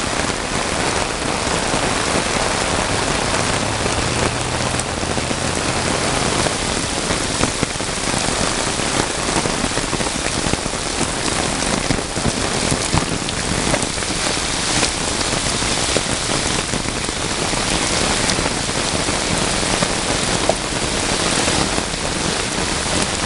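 Heavy downpour of rain falling steadily and splashing on hard surfaces, with many sharp individual drop impacts.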